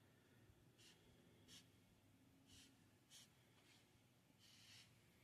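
Faint, short scratching strokes on a scratch-off lottery ticket, about six in five seconds, as words on the ticket are crossed out one by one.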